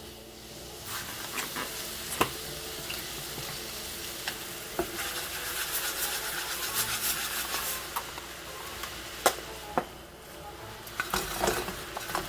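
Food sizzling in a hot pan while being stirred, with sharp clacks and scrapes of a spatula against the pan. The sizzle builds about a second in and dies down near the end, where a few more clacks follow.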